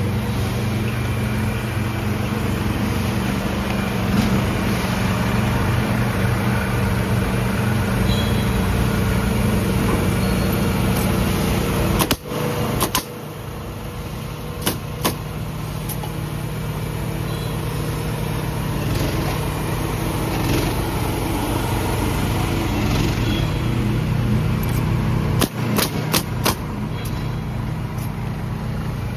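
Mini excavator's engine running steadily, with sharp clicks and brief breaks in the sound about halfway through and again near the end.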